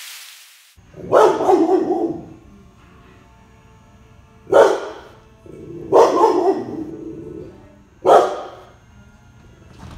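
Rottweiler barking in four loud bouts a couple of seconds apart, reactive barking at a stranger standing outside the glass door.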